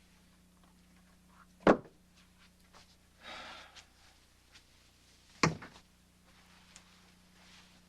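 Two sharp thumps, the first about two seconds in and the second about four seconds later, with a short rustle between them, over a quiet room tone with a steady low hum.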